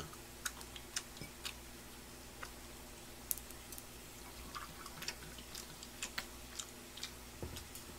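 Quiet room with a steady low electrical hum and scattered small clicks and taps. Around the middle, low-malt sparkling beer is poured from a glass bottle into a small glass.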